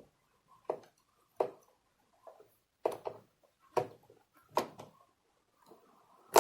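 Smart-lock parts knocking and clicking against the door as the lock is fitted onto its spindles: about five separate sharp knocks, roughly one a second.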